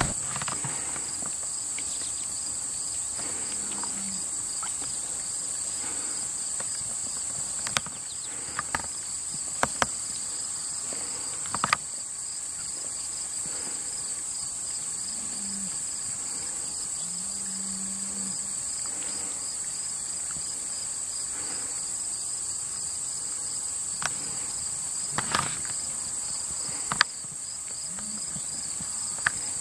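Insects trilling steadily: a high continuous trill with a second, lower trill pulsing rapidly beneath it. A few sharp clicks sound here and there.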